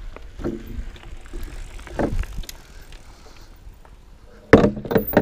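Mountain bike riding over a dirt pumptrack: tyres rumbling on packed dirt and wind buffeting the microphone, with a few knocks and a loud thump about four and a half seconds in.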